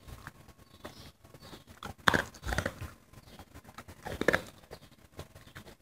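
Dog crunching a dry kibble treat, a few short crunches with the loudest about two seconds in and again near four seconds.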